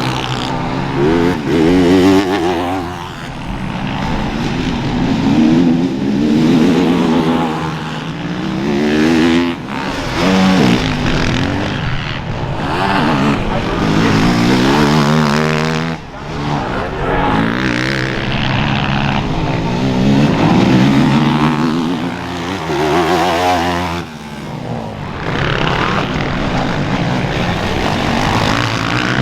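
Motocross racing machines running past on the track, their engines revving up and dropping back again and again as the riders shift and throttle on and off. Several engines overlap, with brief dips where the throttle is shut.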